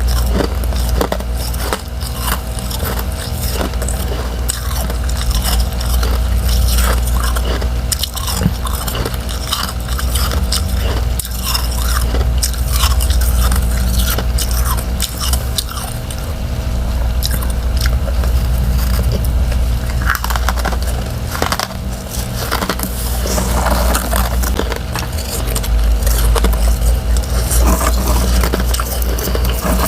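Close-up crunching and chewing of freezer frost: thin refrozen ice chunks and powdery frost cracking between the teeth in dense, continuous crackles. A steady low hum runs underneath.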